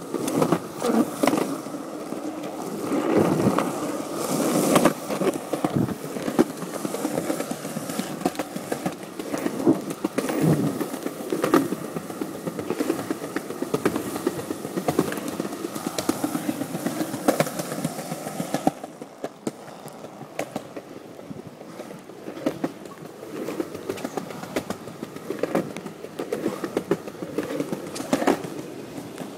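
Skateboard wheels rolling on pavement: a continuous rough rumble peppered with clicks and knocks from cracks and bumps, getting noticeably quieter about two-thirds of the way through.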